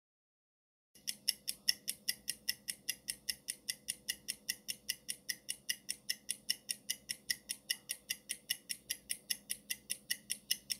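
Countdown-timer ticking sound effect: a fast, even clock tick, about five ticks a second, starting about a second in and running on steadily.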